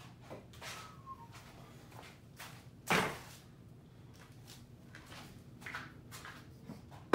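Workshop handling noises: faint footsteps and small clicks and rustles, with one sharp knock about three seconds in, as of a tool being picked up or set down, and another sharp click at the very end.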